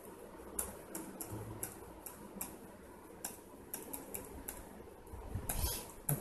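Computer keyboard keys pressed one at a time: a dozen or so light, irregular clicks as figures are typed and Enter is pressed through a data-entry form.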